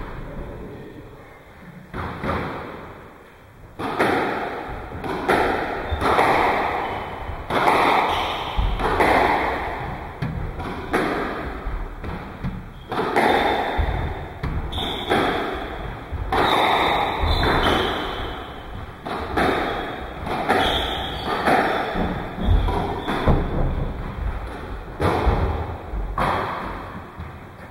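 Squash rally: the ball struck by rackets and smacking off the court walls in a quick, uneven series of sharp hits, roughly one every half second to a second, each ringing briefly in the court.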